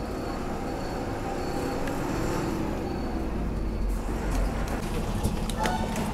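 GSRTC sleeper coach bus running along the road, a steady rumble of engine and tyres heard from on board, with a short higher-pitched sound near the end.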